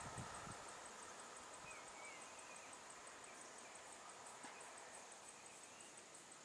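Faint outdoor ambience: a steady high insect drone with a few faint bird chirps.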